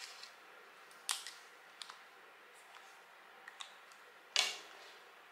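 Cash bills and envelopes being handled: a few faint sharp clicks with light rustling between them, the loudest click about four seconds in.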